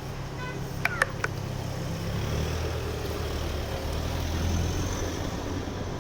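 A motor vehicle engine running with a low, steady rumble that swells in the middle, with a few sharp clicks about a second in.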